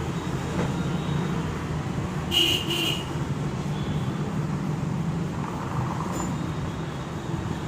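Steady road traffic noise with a short vehicle horn toot about two and a half seconds in.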